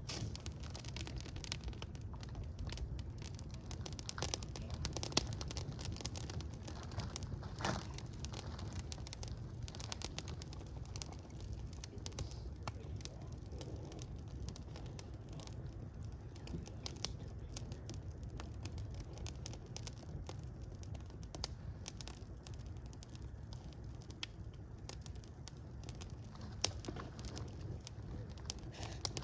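Fire crackling steadily: frequent small pops and snaps over a low, even rumble.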